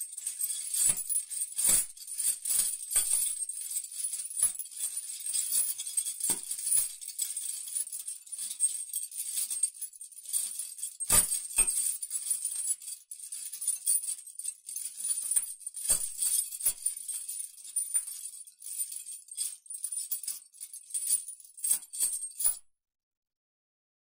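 Metal chain rattling and jangling without a break, with several heavier clanks along the way, then stopping suddenly near the end.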